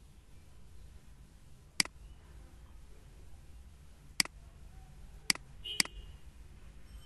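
Four sharp computer mouse clicks, the last two close together, over a faint steady low hum.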